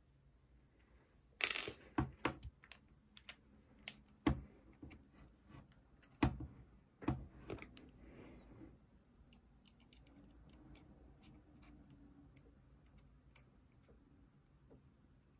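Small metal and plastic airsoft pistol parts and a hex key clicking and clinking against each other and the desk during assembly of an AAP-01 power brake: a sharp metallic clatter about a second and a half in, several knocks over the next few seconds, then faint light ticks.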